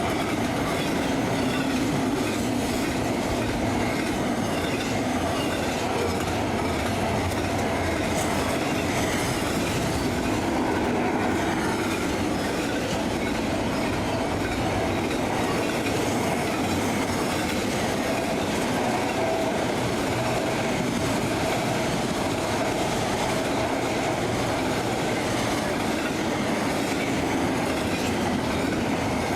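Freight train cars rolling steadily past on the rails.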